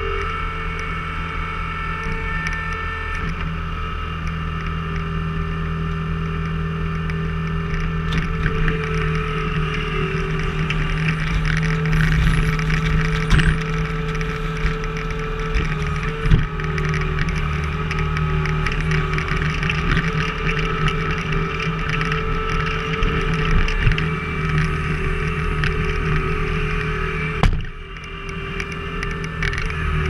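Skid steer engine running steadily under hydraulic load, with a few sharp knocks around the middle as the splitter attachment is tipped over the trailer and split wood drops in.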